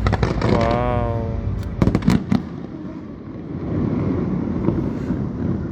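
Aerial fireworks going off: a rapid crackle in the first second, then a quick run of sharp bangs about two seconds in, fading into a low rumble.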